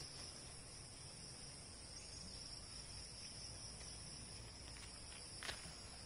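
Steady, faint, high-pitched chorus of insects, with a single brief click about five and a half seconds in.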